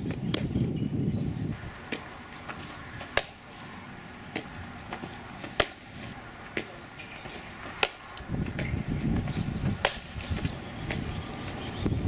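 Wind buffeting the microphone in low gusts at the start and again over the last few seconds. Scattered sharp knocks come at irregular intervals throughout.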